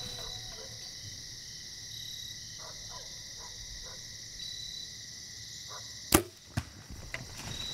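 Compound bow shot: a sharp, loud crack of the string releasing about six seconds in, then a smaller knock about half a second later, over the steady chirring of insects. A few faint knocks follow near the end as the doe bolts.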